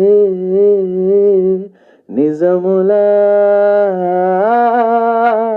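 A man singing a Telugu film song unaccompanied, holding long wavering notes in two phrases with a short breath pause about two seconds in.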